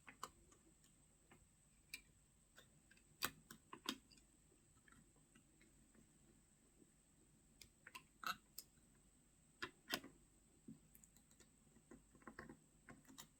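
Faint, scattered clicks and taps of a small precision screwdriver and a tiny screw against a smartphone's internal frame as a stubborn screw is worked into place.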